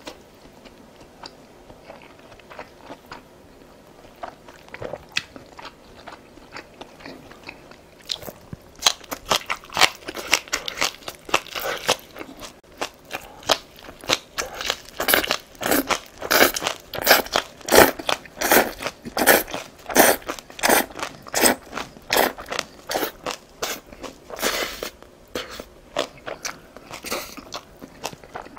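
Crunchy chewing of green onion kimchi (pa-kimchi) stalks. It is faint for the first eight seconds or so, then loud, sharp crunches follow at about two a second.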